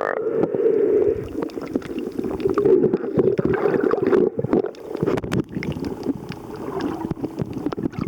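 Muffled underwater water noise while snorkeling: water moving and gurgling, with many short clicks and pops scattered through it.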